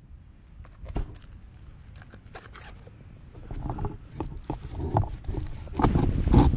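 Scattered rustles and knocks of swim fins and wetsuit gear being handled close to the camera. About six seconds in, a louder steady rush of wind on the microphone and moving water takes over.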